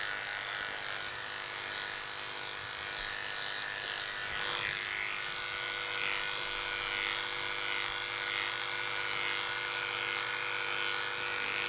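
Electric dog grooming clippers with an attachment comb running steadily with an even, unbroken hum while skimming through a long, soft coat.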